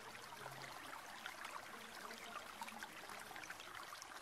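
Faint background ambience: a steady low hiss with scattered light ticks and clicks.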